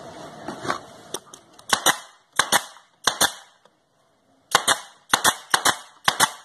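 Pneumatic brad nailer firing brads into pine boards: a rapid series of sharp pops, most in quick pairs, with a short pause about two thirds of the way through.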